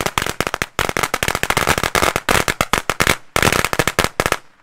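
Firecracker string going off in rapid succession, many sharp bangs a second with two brief pauses, then stopping abruptly near the end.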